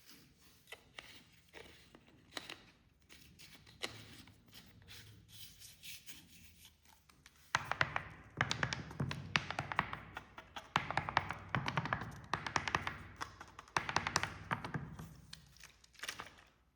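Light taps and clicks of drink containers, then about halfway a carbonated drink being poured and fizzing, coming in three crackling surges.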